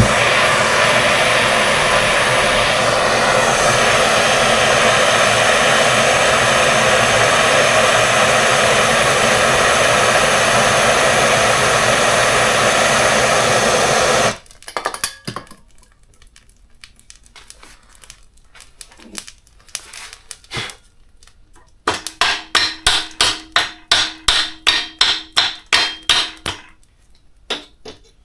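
A power tool runs steadily for about fourteen seconds and cuts off suddenly. After a pause with a few knocks, a quick run of ringing hammer blows, about three a second, strikes the seized centre-stand bolt to shock it loose.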